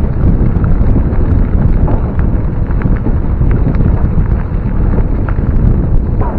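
Wind buffeting the microphone of a camera on a moving bicycle, over the rumble of tyres rolling on a gravel track, with scattered sharp ticks from the gravel.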